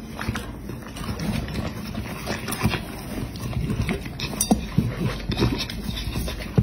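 A dog licking and lapping at a nearly empty steel plate, with quick, irregular wet smacks and clicks of tongue and teeth on the metal.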